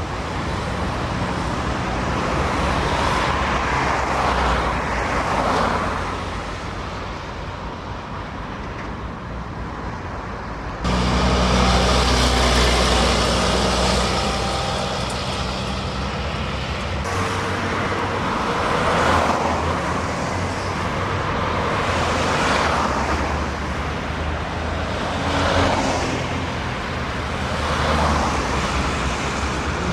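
Diesel lorries and cars passing at a roundabout, their engines running and tyre noise swelling and fading as each one goes by. The sound changes abruptly twice, about 11 and 17 seconds in.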